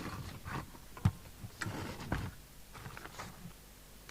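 Scattered small clicks and knocks of equipment being handled on a workbench, with one sharper knock about a second in and a few short rustles.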